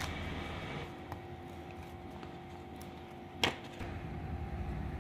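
A single sharp snap about three and a half seconds in, from a laser-cut wooden keychain piece being pushed out of its sheet, with a fainter click about a second in, over a faint steady hum.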